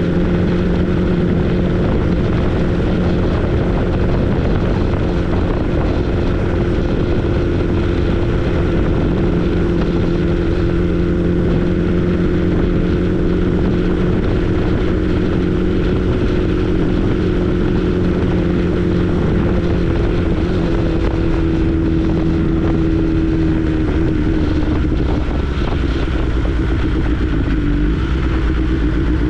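A 2022 BMW S 1000 R's inline-four engine running steadily at cruising speed under a ride, mixed with wind and road noise. The engine note sags slightly in pitch about two-thirds of the way through.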